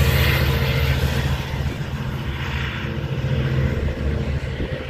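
Long Island Rail Road diesel locomotive and its coaches passing with a steady engine drone and wheel noise, fading as the train moves away.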